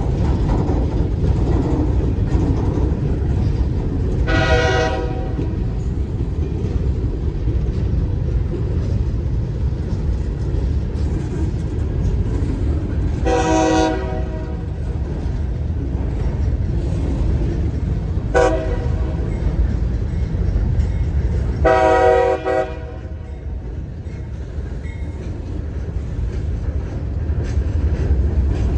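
Diesel locomotive air horn sounding long, long, short, long, the grade-crossing signal, over the steady low rumble of a train running.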